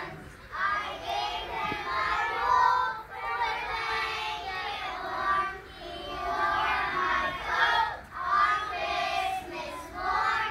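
A group of young children singing together in a school Christmas pageant, in phrases of a couple of seconds with short breaks between them.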